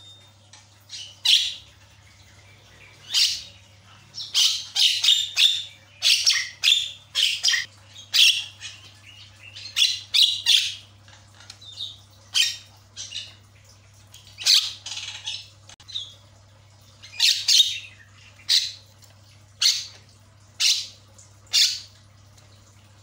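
Javan myna calling: runs of short, scratchy squawks in clusters every second or two, over a faint steady low hum.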